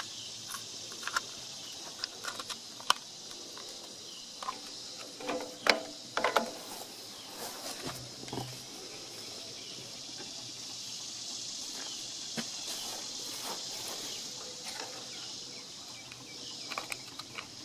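A steady high insect chorus, like crickets chirring, runs throughout. Scattered short clicks and knocks come from hand work on the truck's front turn signal bulb socket, busiest a third of the way through and again near the end.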